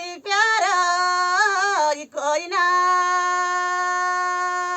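A single high voice singing a song unaccompanied. It gives a wavering melodic phrase, breaks briefly about two seconds in, then holds one long steady note to near the end, where it cuts off.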